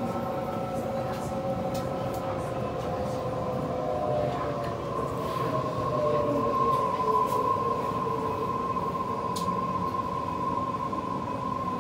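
Electric passenger train at a station platform, its motors whining in several steady tones, some sliding slowly lower in pitch, over a steady rumble.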